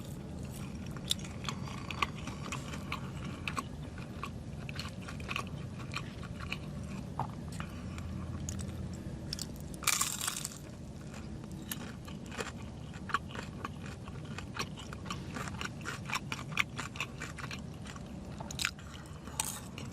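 Close-up chewing of crispy Chicken McNuggets: crunching and small wet mouth clicks, with a brief louder noise about halfway through.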